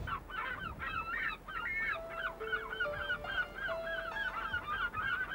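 A large flock of birds calling over one another in a rapid, continuous chatter, joined about two seconds in by soft music with long held notes.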